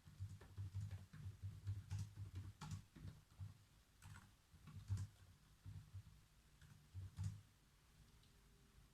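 Faint typing on a computer keyboard: a run of quick, irregular keystrokes with soft clicks and dull thuds, stopping about seven and a half seconds in.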